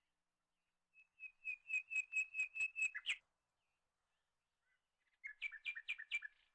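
A bird calling in two bouts of quick repeated notes, about five a second: a longer run of some two seconds, then a shorter run of about a second near the end.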